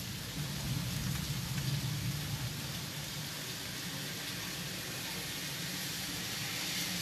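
Heavy rain pouring steadily, a continuous hiss with a low rumble underneath that is strongest in the first couple of seconds.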